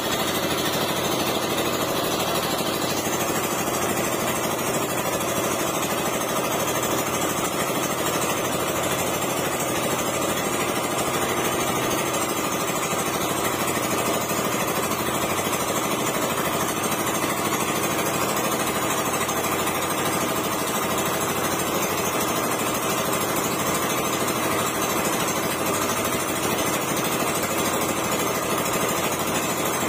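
Small engine on an outrigger fishing boat running steadily at an even pace.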